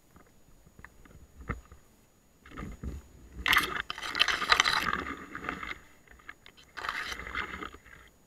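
Leaves, bracken and twigs rustling and scraping close against the camera and clothing as the wearer pushes through dense undergrowth. It comes in two spells: a longer, louder one a few seconds in and a shorter one near the end, with small twig snaps and clicks before them.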